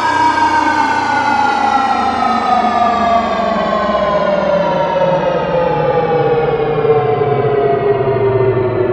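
Star Trek sci-fi sound effect: a steady electronic tone with many overtones sliding slowly and evenly down in pitch.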